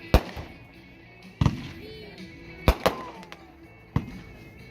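World Class America's Pastime 500-gram fireworks cake firing: sharp shell bursts about once a second, two in quick succession near three seconds in, with a short whistle falling in pitch after them.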